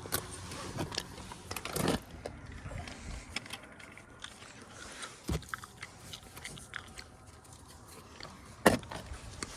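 Scattered clicks, knocks and scrapes over a faint steady background, with a sharp knock about five seconds in and a louder thump near the end.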